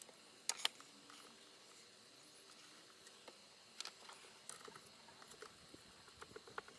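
Faint, scattered clicks and light taps of hand tools and small parts being handled, with two sharp clicks about half a second in and another just before four seconds.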